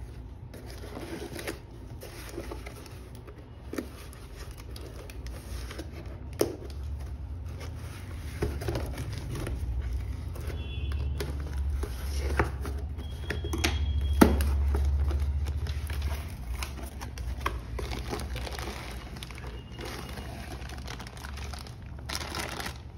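Packaging being handled and opened: plastic and paper crinkling and rustling, with scattered sharp clicks and knocks, the loudest just past halfway, and a low rumble through the middle.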